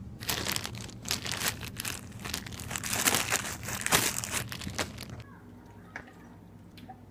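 Zip-top plastic snack bag crinkling as it is handled right up against the microphone, for about five seconds, then stopping as only faint room sound is left.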